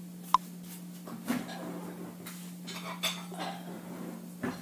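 Light clicks and knocks of kitchen things being handled on the countertop, over a steady low hum. A sharp click about a third of a second in is the loudest sound.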